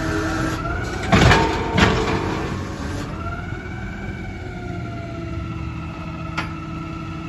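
Automated side-loading garbage truck idling at the curb, with two short loud hisses about a second in, then a whining tone that slowly rises and holds, and a single click near the end.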